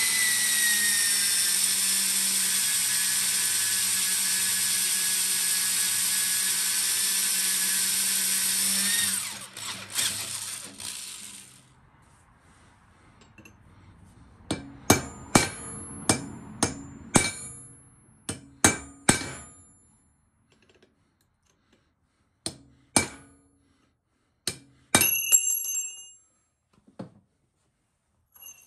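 Electric drill boring into the hardened steel bearing press ring on a rear axle shaft, running steadily for about nine seconds and then stopping. After a pause, a hammer strikes a chisel set in the drilled ring in a quick run of sharp blows and then a few more, each with a high metallic ring, splitting the ring so it can come off the axle.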